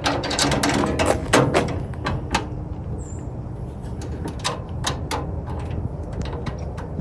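Metal clicks and clanks from bolts and the handle being fitted to a steel tool cart: a quick cluster in the first two seconds, then scattered single knocks.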